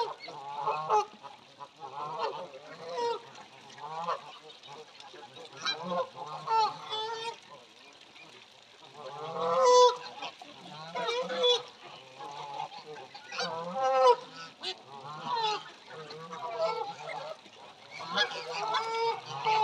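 A flock of Canada geese honking, with many short calls overlapping throughout; a loud burst of honks comes about ten seconds in.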